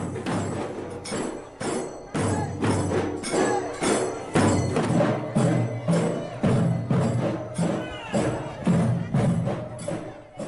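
Dhol drums and kaital, large brass hand cymbals, played by a folk procession group in a steady, fast beat of about three strikes a second, the cymbals ringing over the drums.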